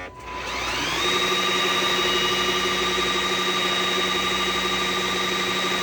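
Riccar R70 floor washer's motor spinning up in its self-cleaning cycle, a whine rising for about a second and then running steadily as the brush rolls spin and are sprayed with water.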